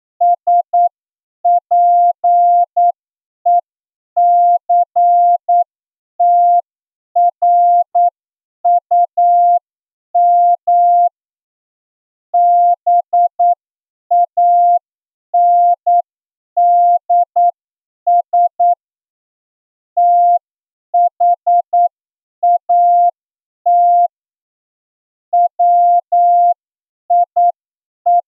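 Morse code sent as a single steady beep tone, keyed on and off into short dots and longer dashes with pauses between letters and words, at the slow 8 words-per-minute speed of an amateur-radio receiving test.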